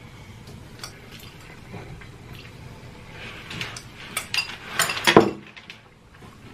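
Slurping and chewing a mouthful of spicy noodles close to the microphone, with wet mouth clicks. The slurps start about three seconds in and are loudest about five seconds in.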